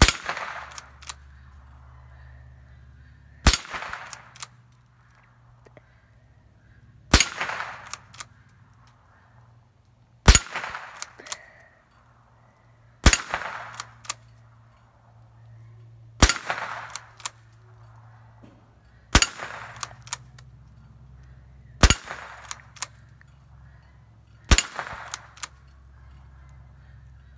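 Winchester 9422 lever-action .22 LR rifle firing nine shots, about one every three seconds, each followed by a few sharper clicks as the lever is worked to chamber the next round.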